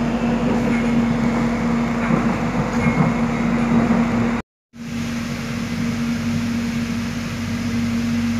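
Interior running noise of an electric airport train: a steady rumble with a constant low hum. The sound drops out completely for a moment about halfway through.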